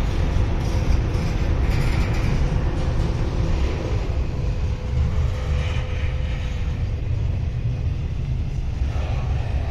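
Intermodal freight train rolling past on a mountain grade: a steady, heavy low rumble of wheels on rail, with a faint steady hum above it.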